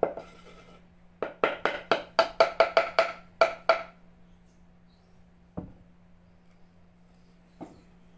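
Wooden pestle pounding in a wooden mortar, crushing ingredients to powder: a quick run of about a dozen knocks, about four a second, then two lone knocks later on.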